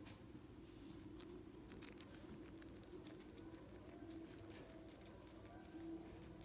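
Guinea pig nibbling at leaves and apple: a quick run of faint crisp crunching clicks about a second in, loudest near two seconds, then a few scattered ones, over a low steady hum.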